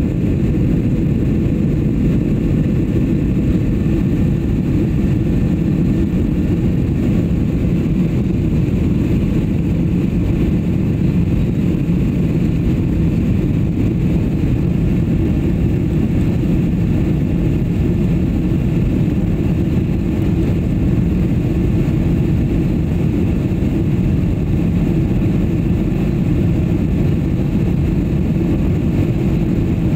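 Steady cabin noise inside an airliner in flight: engine and airflow drone, low and even, with no change in level or pitch.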